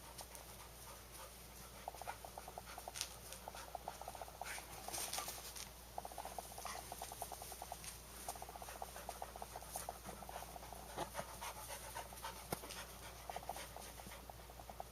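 A dog panting in repeated quick bursts while play-fighting with a cat, with scattered sharp taps and scuffles.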